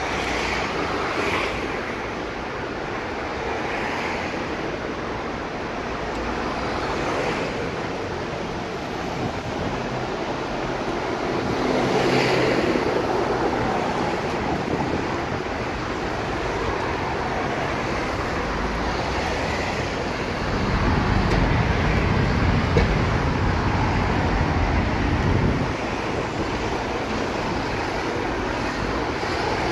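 Steady road traffic on a busy multi-lane street: cars and buses passing close by. One vehicle swells louder about twelve seconds in, and a heavy vehicle's low rumble builds and fades for several seconds about two-thirds of the way through.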